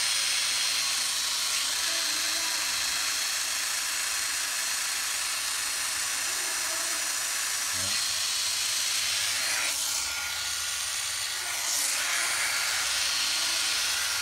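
Makita 12V cordless impact driver running free on the trigger, a steady high-pitched motor whir without hammering.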